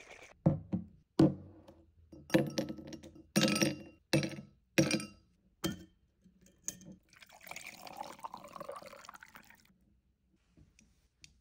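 A string of sharp glass clinks and knocks over the first six seconds, then lemonade poured into a glass with ice cubes for about two and a half seconds.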